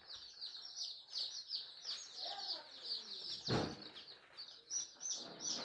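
A box of young desi chicks peeping constantly: many short, high, downward-sliding cheeps overlapping at several a second. A brief thump comes about three and a half seconds in.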